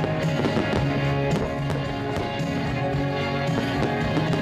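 Music with sustained chords and a beat, played along with a fireworks display, with sharp cracks scattered through it from the bursting shells.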